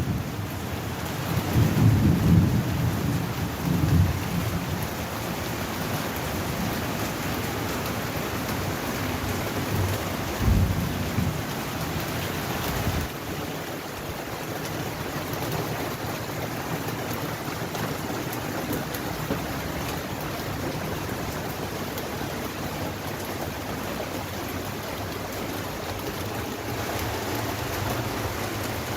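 Steady rain falling, with thunder rumbling in the first few seconds and again briefly about ten seconds in.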